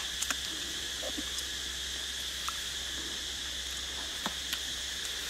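Steady high-pitched drone of forest insects, with a few short, scattered clicks and smacks from chewing.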